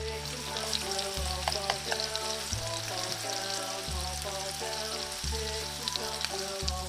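Food sizzling and crackling in a hot frying pan, over instrumental background music.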